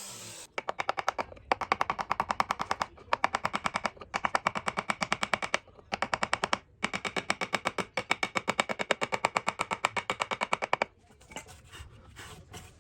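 Rapid, even train of sharp mechanical impacts, several a second, coming in bursts of one to four seconds with short pauses, from a power tool working wood. It stops about two seconds before the end, leaving faint scraping.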